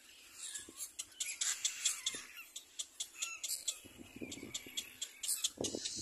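Little black cormorant nestlings calling at the nest: rapid, high, squeaky calls repeated many times, joined by lower, rougher calls from about four seconds in.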